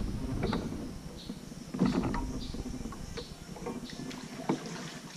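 Kayak paddle strokes: irregular splashes of the blades dipping into the water, with a few light knocks. A low rumble fades out about a second in.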